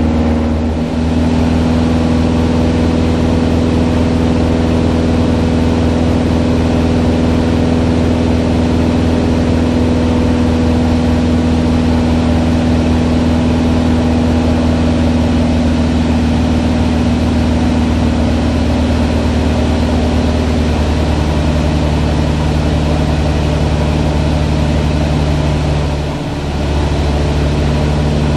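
Van's RV-7A's piston engine and propeller running steadily in flight, a loud, even drone heard inside the cockpit. It dips briefly about a second in and again near the end.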